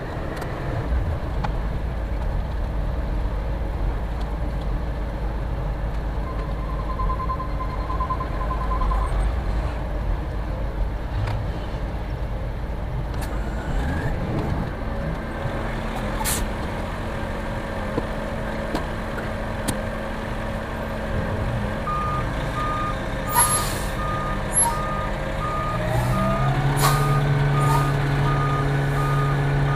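Concrete mixer truck's Caterpillar C13 diesel running at idle, then its reversing alarm beeping steadily from about two thirds of the way in as the truck backs up. Short air hisses sound alongside, and near the end the engine revs up and holds a higher speed.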